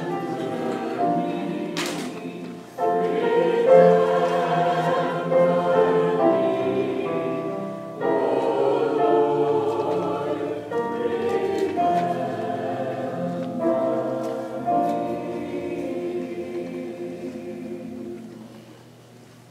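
Church choir singing slow, sustained chords, moving to a new chord every few seconds, then fading out near the end.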